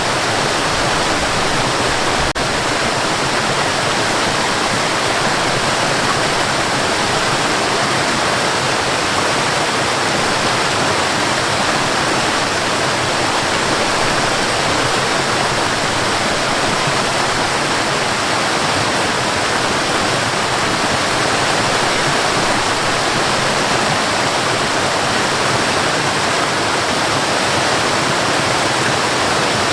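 Waterfall in a forest, water rushing and splashing in a steady, unbroken roar of white-noise-like sound.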